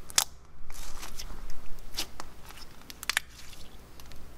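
Glossy, fine-glitter slime pressed and stretched by fingers, giving sharp clicks and pops as air pockets in it burst: a few spaced out, a soft crackle about a second in, and a quick cluster of clicks near the end.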